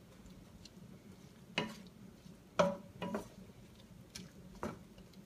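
Wooden spatula stirring sliced mushrooms and green pepper in butter in a stainless steel sauté pan, scraping and knocking against the pan about five times at irregular intervals, over a faint sizzle.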